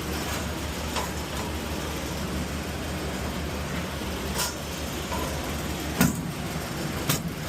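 Steady low drone of running air-handling equipment. A few sharp knocks and clacks of filters and panels being handled break through it, the loudest about six seconds in.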